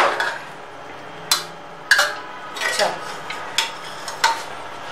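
A perforated steel skimmer spoon clinking against a steel cooking pot as boiled rice is spread over the meat, about five sharp metallic knocks roughly a second apart, each ringing briefly.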